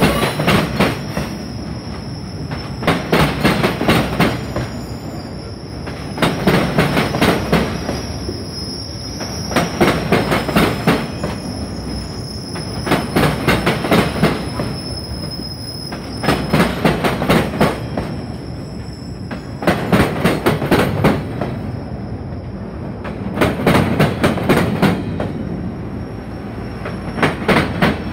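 Rail-train flatcars rolling past, their wheels clacking over rail joints in a cluster of strikes about every three and a half seconds. A thin, high wheel squeal rides over the rolling noise through the first half, then fades.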